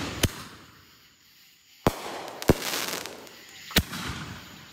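Consumer aerial fireworks going off at night: four sharp bangs in under four seconds, the second pair about half a second apart, with a hiss of sparks between them.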